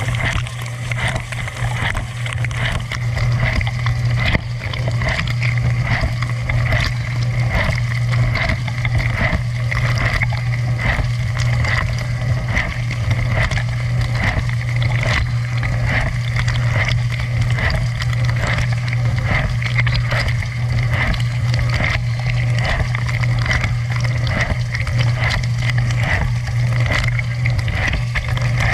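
Dishwasher running a wash cycle: the circulation pump's steady low hum under continuous water spraying and splashing inside the tub.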